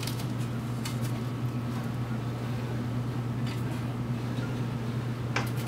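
Steady low hum of room background noise, with a few faint clicks and taps as parts are handled inside the unpowered 3D printer's build chamber, the sharpest one near the end.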